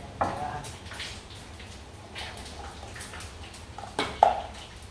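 Kitchen handling sounds at a chopping board: scattered knocks and clinks of utensils and dishes. The loudest come just after the start and about four seconds in, some with a short ring.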